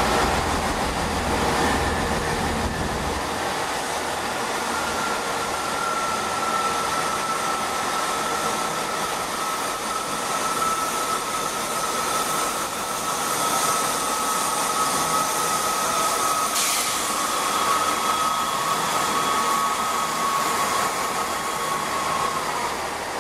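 Great Western Railway Class 165 diesel multiple unit pulling away from the platform, its diesel engines running under a steady whine that slowly falls in pitch and stops shortly before the end. A deep rumble fills the first few seconds.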